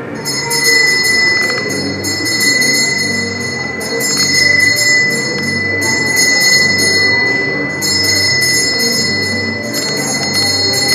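Many small bells jingling continuously, with brief breaks every couple of seconds.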